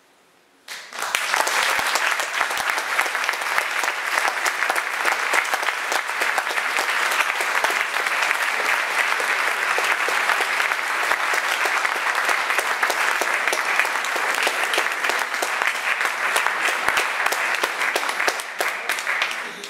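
Audience applauding: clapping breaks out suddenly about a second in, keeps up steadily, and dies away near the end.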